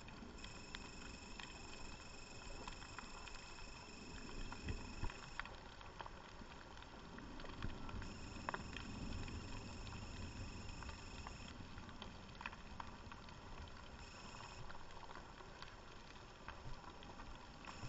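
Underwater reef ambience: a faint steady hiss with scattered sharp clicks and crackles.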